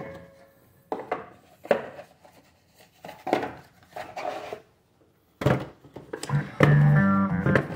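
Handling noise between songs: a few light knocks and rubs of cardboard boxes being moved about. Music starts up again near the end.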